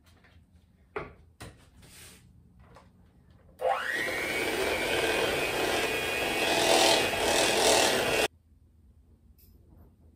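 Electric hand mixer beating cream cheese icing in a bowl: it starts about three and a half seconds in with a quickly rising whine, runs steadily and loudly for about four and a half seconds, then cuts off suddenly. A couple of light knocks come before it starts.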